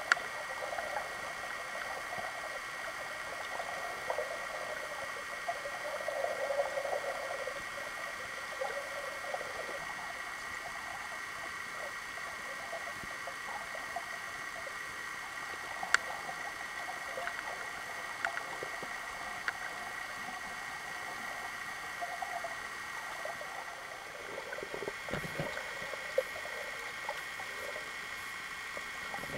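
Underwater ambience heard through a camera held below the surface while snorkelling: a steady hiss with a constant tone, a wavering muffled water murmur, and a few sharp clicks, one about sixteen seconds in.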